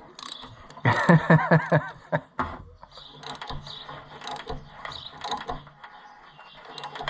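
Ratchet clicking in short runs as a thread tap is turned into a dirt-filled bolt hole, chasing the threads. A short burst of laughter comes about a second in.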